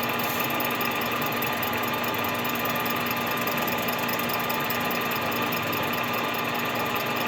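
Machine tool running steadily while a carbide-tipped cutter takes a light cut off the base of a Stihl MS 261 chainsaw cylinder, an even mechanical hum with several steady tones.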